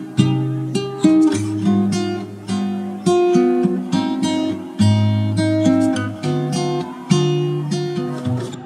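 Background music: a strummed and picked acoustic guitar tune with a bass line, fading out near the end.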